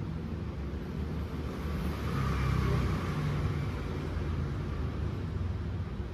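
Steady low rumble that swells for about a second and a half, starting about two seconds in, then eases back.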